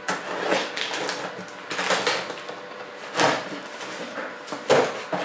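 Packing tape being ripped off a cardboard box and its flaps pulled open: a run of rough tearing and scraping noises, the loudest a little after three seconds in and again near the end.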